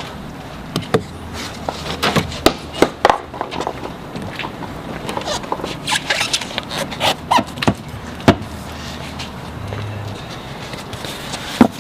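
A spare tire being set back into a car's trunk well, with irregular knocks, bumps and scrapes of rubber and plastic on the trunk floor, and a sharp knock near the end.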